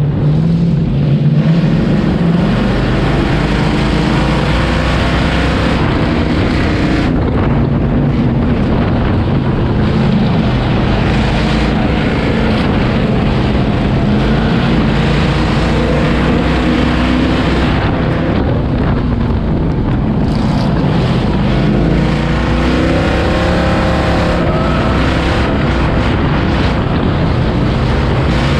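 Ford figure-8 race car's engine heard loud from inside the cockpit on track, its pitch rising and falling with the throttle.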